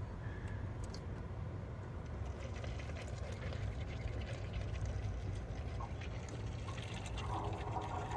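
Freshly poured motor oil trickling and gurgling down inside a 5.9 L V8 engine, heard up close, over a steady low hum. The trickle grows more distinct about seven seconds in.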